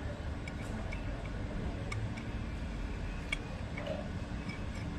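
A few scattered light metallic clicks from a wrench on the wheel nuts of an auto rickshaw's spare wheel as they are tightened in opposite (criss-cross) order, over a steady low rumble.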